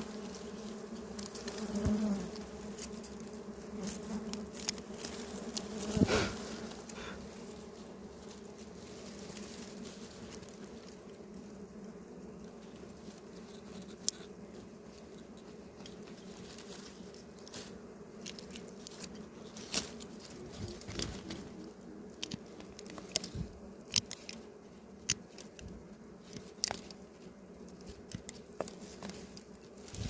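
Honeybees buzzing in a steady hum around an exposed wild comb, with scattered sharp clicks and crackles.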